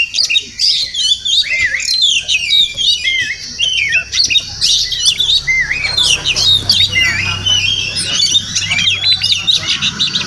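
Oriental magpie-robin singing a fast, unbroken run of varied whistled and chattering notes.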